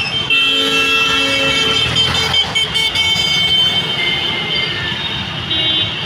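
A vehicle horn held for about a second and a half, then fainter horn toots near the end, over the steady noise of traffic on a wet road.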